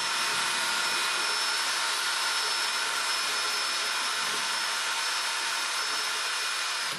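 Electric drill with a paddle mixer running at a steady speed, a constant whine, stirring liquid porcelain slip in a jar to remix the porcelain that has settled; it cuts off abruptly at the end.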